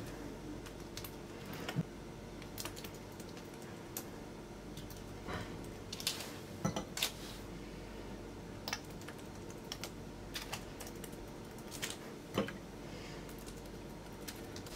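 Fingernails pressing down through soft pide dough and clicking against the glass baking dish beneath: a scatter of light, irregular taps and clicks over a faint steady hum.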